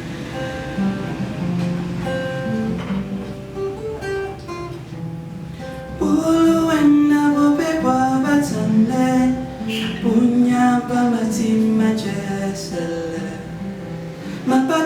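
A song played on acoustic guitar, strummed and picked as an intro. About six seconds in, a voice begins singing over it, and the music gets louder.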